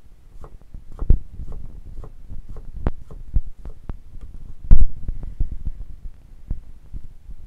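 Chef's knife chopping on a wooden cutting board: an irregular run of knocks, with two louder knocks about a second in and near the five-second mark.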